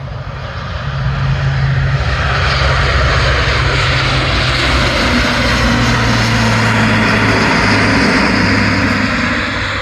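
Large four-engine turboprop military transport aircraft flying past: a loud propeller drone with a low hum, swelling in over the first second and easing off near the end, its low tone dropping in pitch partway through as it passes.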